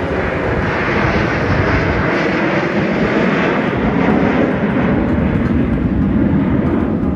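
Jet noise from a formation of six F-16 fighter jets flying past, a steady, loud noise that builds over the first second and then holds.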